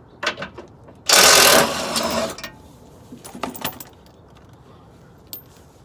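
A power tool runs for about a second and a half, backing out an 18 mm bolt on the transmission skid bar, loudest at the start. Short metallic clicks come before and after it.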